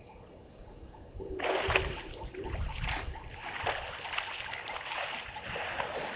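Elephants splashing in the water of a waterhole: irregular splashing and sloshing that starts suddenly about a second and a half in and carries on. A faint high insect chirp pulses steadily behind it, about five times a second.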